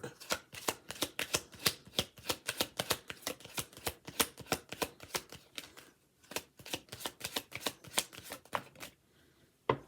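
Tarot cards being shuffled by hand: a rapid run of light clicks, several a second, with a short break about six seconds in, stopping near the end.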